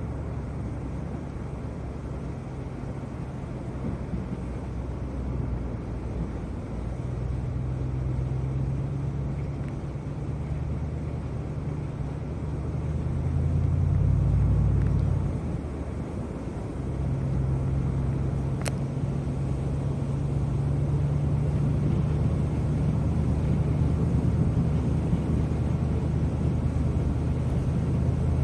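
A car engine running with a steady low hum. It grows louder for a couple of seconds about halfway through, and there is a single sharp tick a little later.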